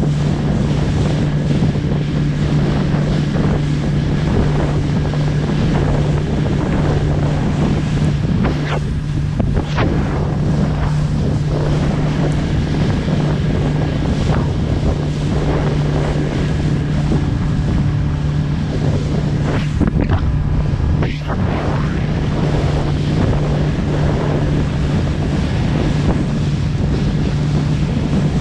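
Small fishing boat's engine running at a steady pitch under heavy wind noise on the microphone, with the rush of rough sea around the hull.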